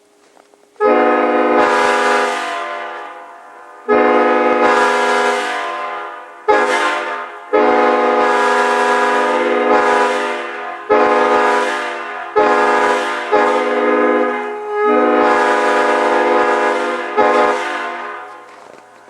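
Leslie multi-chime locomotive air horn blown in a series of about nine blasts, some long and some short, each a chord of several tones that starts sharply and fades away.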